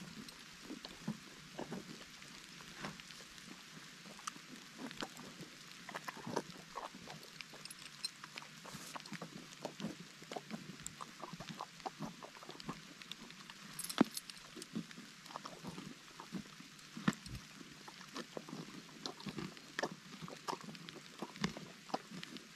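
A donkey chewing watermelon and cropping grass close to the microphone: irregular wet crunches and tearing, a few a second, with two louder crunches near the middle. Light rain gives a steady hiss underneath.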